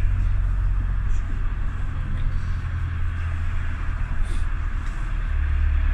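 Steady low engine and road rumble of a moving vehicle, heard from on board.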